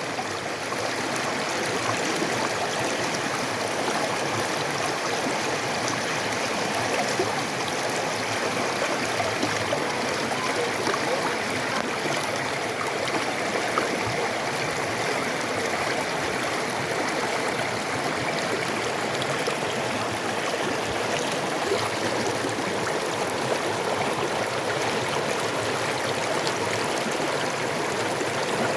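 A creek running steadily over rocks, its water babbling and splashing without a break.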